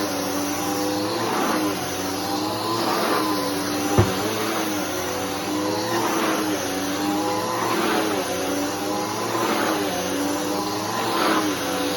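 Bissell Powerforce Helix upright vacuum cleaner running while vacuuming, its motor pitch dipping and recovering about every one and a half seconds as it is pushed back and forth. One sharp knock about four seconds in.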